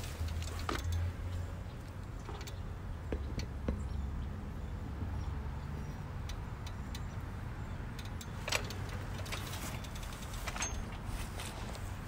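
Steady low outdoor rumble with scattered light clicks and clinks, the sharpest about eight and a half seconds in.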